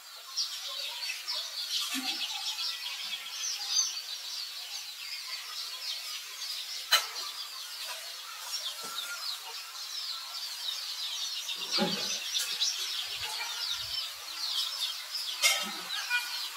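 Many small birds chirping together in the trees, a steady chorus of short high chirps, with a sharp click about seven seconds in and a couple of low thuds.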